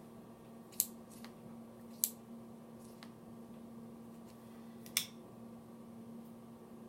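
A handful of sharp little clicks of small metal parts and tools being handled while a pocket knife is put back together, the loudest about a second, two seconds and five seconds in, over a faint steady hum.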